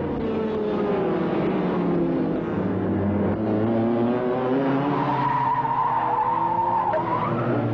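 1970s racing car engines revving and changing pitch as several cars pass, more than one engine heard at once. A high tyre squeal holds for about two seconds near the end.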